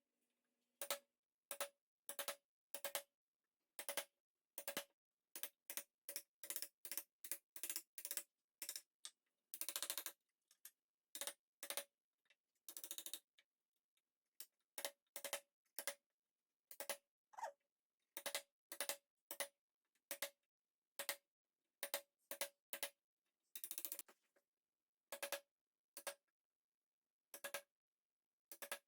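A long irregular series of sharp knocks, each with a brief ringing note, sometimes two or three a second, with a few longer scraping sounds mixed in.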